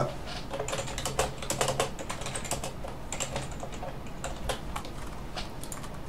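Typing on a computer keyboard: a run of quick keystrokes, entering a test sentence to check the keyboard works.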